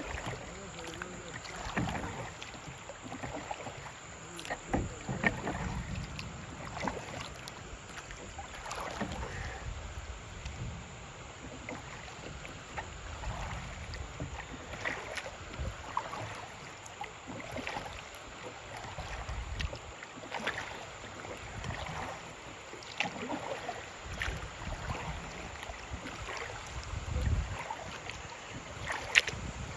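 Kayak on a river: water splashing and lapping against the hull, with scattered small knocks and splashes throughout. Wind gusts rumble on the microphone now and then.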